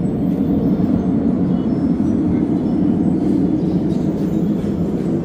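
Wind buffeting the phone's microphone: a steady, low rumble.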